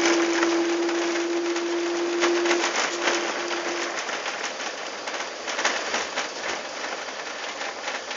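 Airbus A380 cabin noise on the landing roll: a loud, steady rush of engine and air noise with frequent rattles and knocks from the cabin fittings. A steady tone sounds for about two and a half seconds, then twice more briefly.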